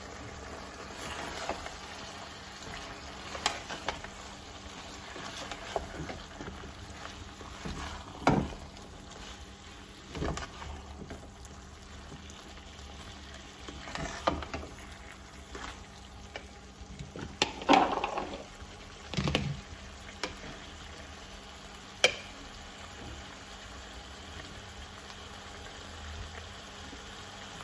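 Mixed vegetables (cauliflower, potatoes and spinach in masala) cooking in a pan with a steady low sizzle. A metal spoon stirs them, scraping and knocking against the pan now and then, loudest about eighteen seconds in.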